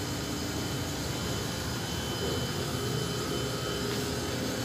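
Steady whooshing hum of air conditioning, with a few faint steady tones running under it.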